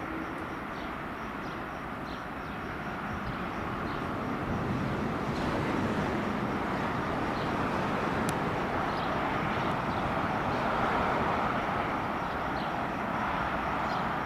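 English Electric diesel locomotive of the Takargo 1400 class hauling a steel train, its engine running and wagon wheels rolling on the rails. It grows louder over the first several seconds as the train approaches, then holds steady.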